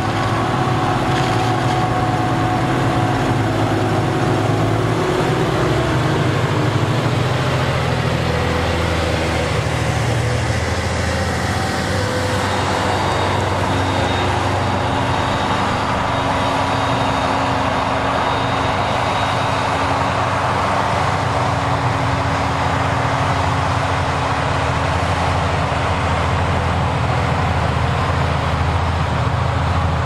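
Claas Jaguar self-propelled forage harvester running under load as it chops maize, a steady engine noise with a tractor's engine running alongside in the first part. The engine tones change partway through, about ten seconds in.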